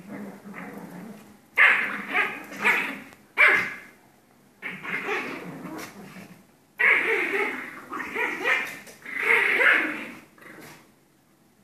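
Two Pomeranians barking and yapping at each other in several short bouts while play-fighting, with pauses between bouts and quiet near the end.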